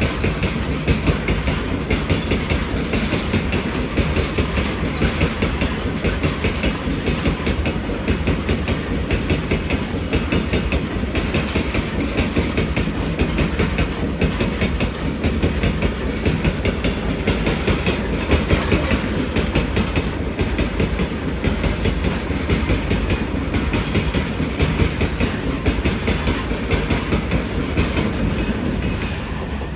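Train passing close by, its wagon wheels clattering over the rail joints in a rapid, unbroken clickety-clack, growing slightly quieter near the end.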